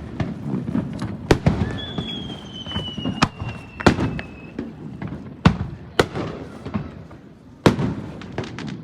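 Fireworks display: firework shells bursting overhead in sharp bangs at irregular intervals, about seven in all. A high whistle falls slowly in pitch for a couple of seconds starting about two seconds in.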